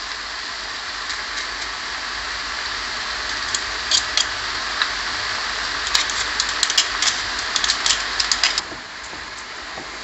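Chopped leeks and onions sizzling steadily in a frying pan. From about three and a half seconds in to about eight and a half seconds, a metal garlic press clicks and clacks repeatedly as garlic is pressed into the pan.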